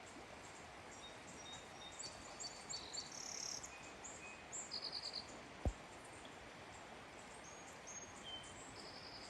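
Wild birds chirping in short, high notes over a faint, steady outdoor background hiss. A single sharp click sounds a little past halfway.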